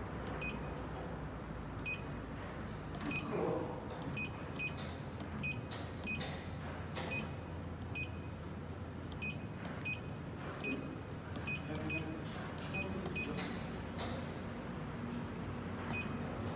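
Touchscreen control panel of a hydraulic paper guillotine beeping at each key press: about seventeen short, high beeps at uneven intervals as sizes are keyed in, over a steady low hum.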